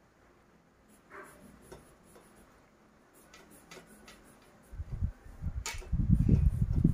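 Pencil pressed hard on paper over a wooden desk, going back over drawn lines to darken them. At first only a few faint scratches, then, about two-thirds of the way in, a run of loud, quick, low rubbing strokes.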